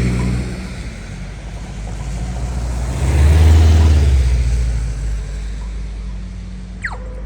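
Road traffic: a motor vehicle passes, loudest about three to four seconds in and then fading. Near the end comes a short falling squeal that settles into a steady tone.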